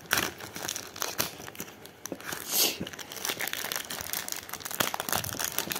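The shiny wrapper of a Pokémon card booster pack being torn open and crinkled by hand: irregular crackling, with one louder rip about two and a half seconds in.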